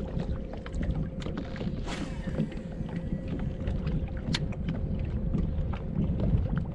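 Wind buffeting the microphone aboard an open boat, a gusty low rumble, with scattered small ticks and a faint steady hum underneath.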